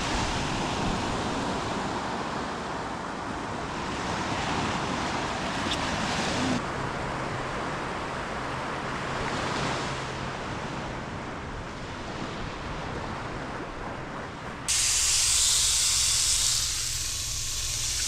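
Surf and wind noise at the shore, an even rushing hiss. Near the end it switches abruptly to a louder, higher steady hiss.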